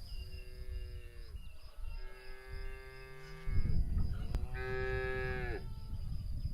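Cattle mooing: three long calls, each dipping in pitch as it ends, over a low rumbling background that grows louder partway through.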